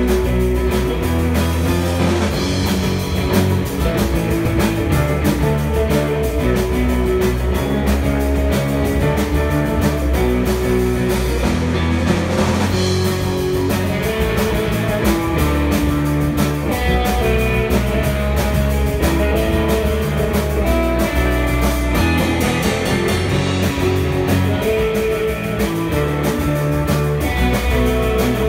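Live rock band playing an instrumental on electric guitars and a drum kit, loud and continuous.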